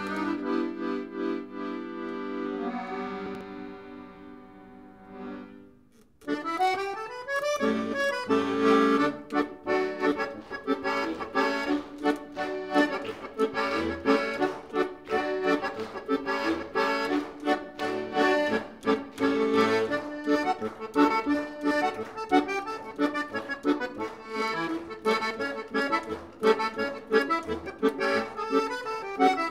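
Piano accordion solo. A held chord fades away over the first few seconds, and after a short pause a new tune starts with a rising run and goes on as a lively stream of quick notes over a rhythmic bass.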